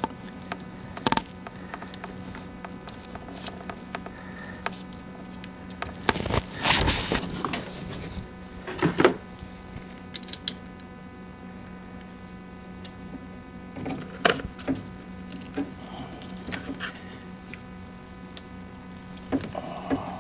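Wires, connectors and a pair of pliers handled among golf-cart battery terminals: scattered short clicks, clinks and rustles, a few louder clusters, over a steady low hum.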